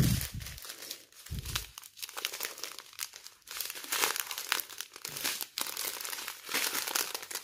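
Small plastic bags of diamond-painting drills crinkling as they are handled and sorted, with two dull thumps in the first two seconds.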